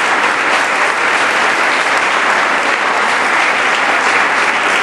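Applause from many people clapping, steady and sustained.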